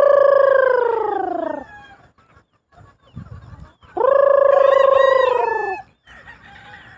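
Two long crows from gamefowl roosters, one at the start and a second about four seconds in, each lasting about two seconds and dropping in pitch at the end.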